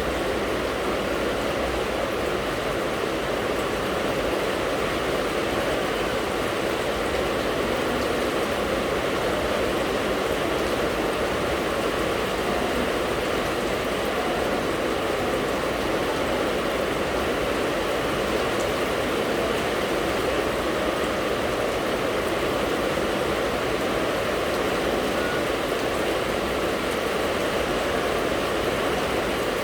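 Steady, even rain noise, a continuous hiss with no single drops, thunder or other events standing out.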